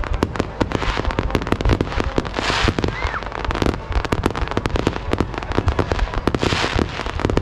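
Fireworks finale barrage: aerial shells and fan-shaped ground fireworks firing and bursting in rapid succession, many sharp bangs a second. Stretches of crackling hiss swell about two and a half seconds in and again near the end.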